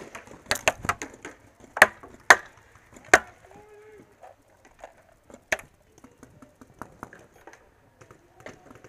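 Paintball fire: sharp cracks of pump markers shooting and paintballs breaking against the plastic pipe bunkers close by. A quick run of them comes in the first second, louder single hits about two, two and a half and three seconds in, and one more about five and a half seconds in.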